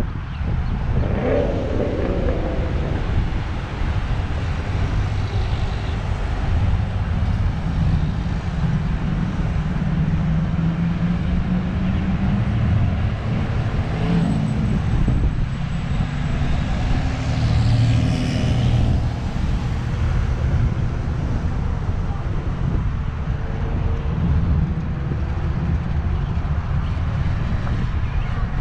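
Road traffic at an intersection: cars and trucks driving past, engines accelerating away, over a continuous low rumble of engines and tyres.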